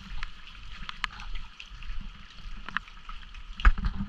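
Rain falling outdoors with wind rumbling on the microphone, scattered drops ticking, and a louder thump about three and a half seconds in.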